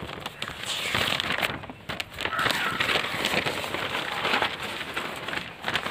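Newspaper being handled and crumpled close by: a continuous crackling rustle of paper.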